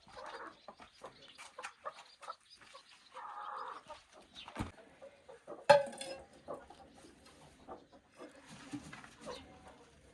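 Scattered light clicks and knocks, with one sharper knock about six seconds in, and a short animal call, like a hen clucking, about three seconds in.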